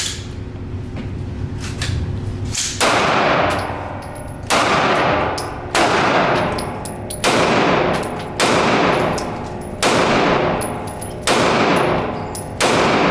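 Semi-automatic pistol fired eight times at a steady pace, a shot every second or so, beginning about three seconds in. Each shot trails off in a long echo.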